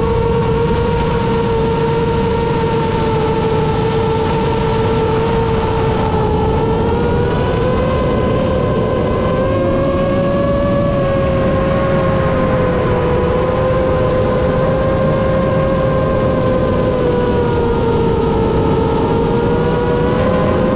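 Seven-inch AOS Falcon 7 FPV quadcopter's T-Motor F90 motors and propellers whining steadily in flight. The pitch rises slightly about seven seconds in and dips again near the end, as the throttle changes, over a steady rush of wind.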